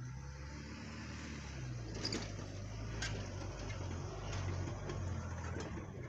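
Opel Frontera 2.2 SUV's four-cylinder engine, running on LPG, humming steadily at low revs as the vehicle comes down a sandy slope and passes close by, growing louder as it nears. A few sharp knocks cut in about two, three, four and five and a half seconds in.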